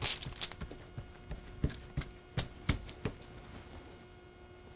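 Hands pressing and patting pie-crust dough on parchment paper over a wooden counter: soft, irregular taps and paper rustles, thinning out and growing fainter near the end.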